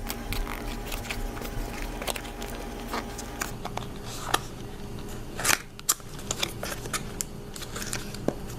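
Scattered clicks, taps and rustles of headphone box packaging being handled and worked open by hand, with a couple of louder snaps about five and a half seconds in.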